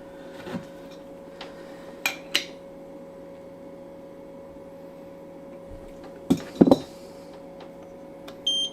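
Light clicks and a louder cluster of knocks from work on the engine's timing belts, over a faint steady hum. Near the end a short, high electronic beep sounds from the belt tension meter as it gives its reading.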